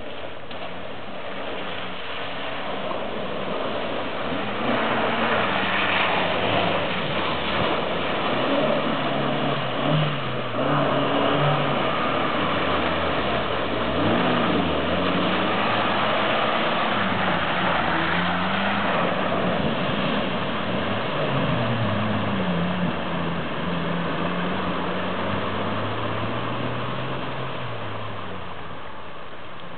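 Suzuki 4x4's small petrol engine revving up and down as it wades through deep muddy water, with water sloshing and splashing around it. It grows louder as the vehicle comes close, holds, and fades near the end as it moves away.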